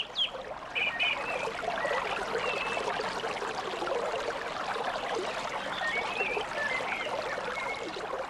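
Steady trickling, running-water ambience with a few short, high, wavering chirps over it, fading out near the end.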